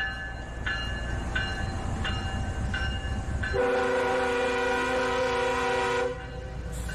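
Level-crossing warning bell ringing about one and a half strokes a second over the low rumble of a freight train. About halfway through, the locomotive's air horn sounds one long, loud chord for about two and a half seconds.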